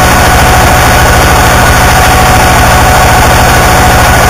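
Harsh noise wall: dense, heavily distorted static at full loudness that does not change. A fast throbbing low end and a few steady tones are held through it.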